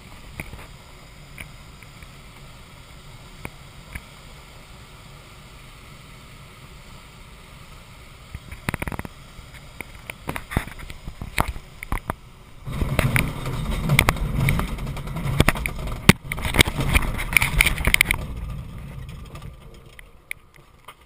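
Glider landing on a grass airfield: a quiet steady rush of air in the cockpit, a few sharp knocks a little past the middle, then a loud rumble and rattle of the wheel rolling over the grass for about five seconds, dying away as the glider slows.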